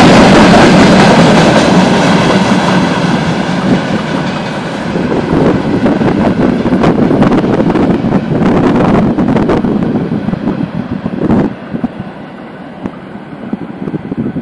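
Freight train of open-top gondola wagons rolling past. The wheels rumble and clatter over the rail joints, with a run of sharp clacks in the middle. The sound is loud at first, eases off, and drops away about three-quarters of the way through.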